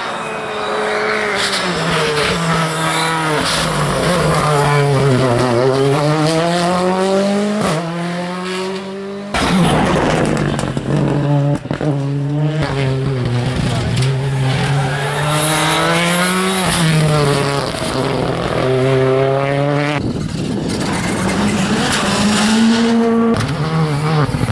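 Rally cars driven flat out through bends, in three separate passes: each engine's note falls as the car slows for the corner, then climbs again and again as it accelerates up through the gears, with sharp cracks between the rising notes.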